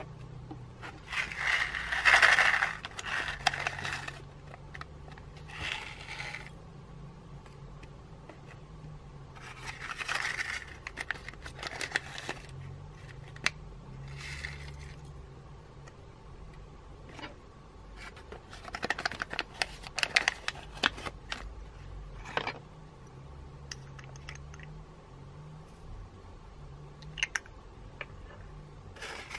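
Small plastic beads and sequins poured from paper packets into a glass dish of clear slime, clicking and pattering in several short bursts, with the paper packets rustling.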